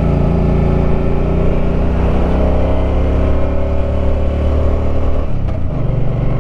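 Suzuki Boulevard M50's 805 cc V-twin engine running under way on a steep mountain road climb, its note slowly falling in pitch, then changing abruptly about five seconds in.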